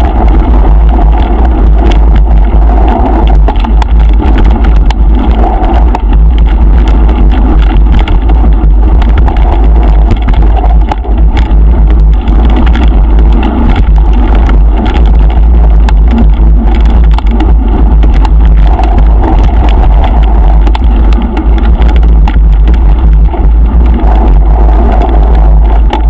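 Mountain bike ridden fast along a dirt forest trail, heard from a camera mounted on the rider or bike: heavy wind rumble buffeting the microphone over tyre noise, with frequent small knocks and rattles as the bike goes over bumps.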